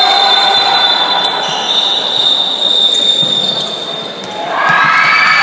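Spectator crowd cheering and chanting while a handball bounces on the hall floor; the cheering dips briefly and then swells up loudly near the end.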